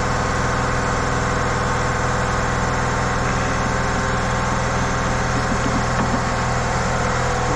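Air compressor running with a steady drone, and a few faint knocks about three and six seconds in.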